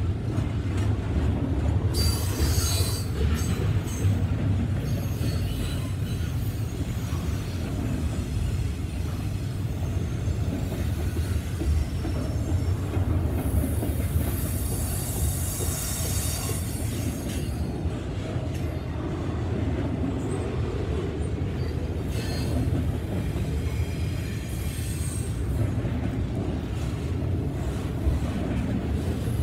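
Double-stack intermodal freight train's well cars rolling past, with a steady low rumble of steel wheels on rail. High wheel squeal comes and goes three times: a couple of seconds in, around the middle, and again later on.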